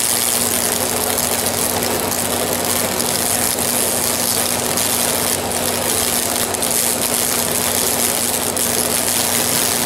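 High-voltage current from a microwave oven transformer arcing through wet, baking-soda-soaked pine straw: a steady, loud electric buzz and crackle with a low mains hum underneath, as the tinder begins to smoke.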